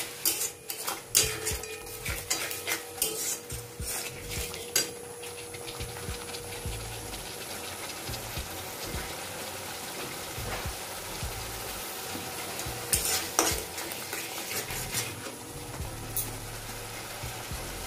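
A metal spatula scraping and knocking against a metal kadai as a thick spice paste fries in oil with a steady sizzle, the clatter coming in clusters near the start and again about two-thirds of the way through. The masala is being cooked down until the oil starts to separate at the sides.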